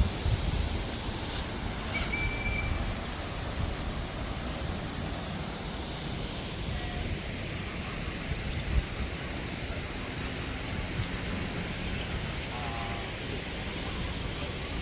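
Outdoor ambience of a bird park: a steady low rumble of wind and noise, with a few faint, brief bird calls: a short whistle about two seconds in and a short warbling call near the end.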